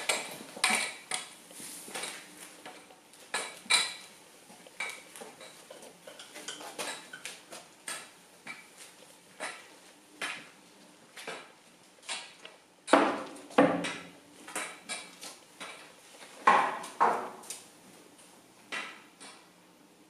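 Irregular clinks and clatters of small hard objects being handled and set down, with two heavier knocks about thirteen and sixteen and a half seconds in.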